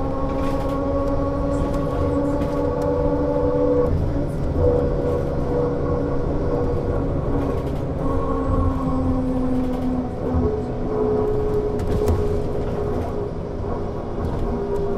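2001 Berkhof Premier AT 18 articulated trolleybus running, with an electric whine of several steady tones over a low rumble. The whine shifts lower in steps about four and ten seconds in.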